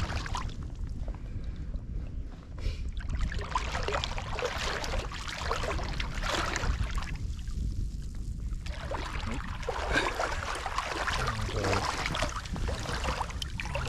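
Shallow seawater splashing and lapping around hands in the water as a trout is held and released, in irregular washes with a brief lull near the middle. A steady low wind rumble sits under it.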